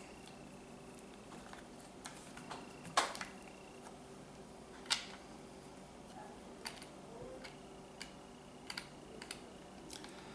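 Light scattered clicks and taps as screws are put back into a Glock conversion kit chassis and tightened down by hand, with two sharper knocks about three and five seconds in.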